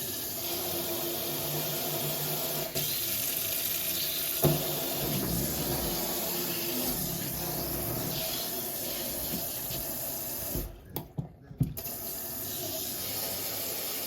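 Water running steadily from a kitchen faucet into the sink, plausibly the newly fitted LIXIL SF-A451SYXU being run to check it works without leaking. The flow breaks off briefly, with a few knocks, about eleven seconds in, then runs again.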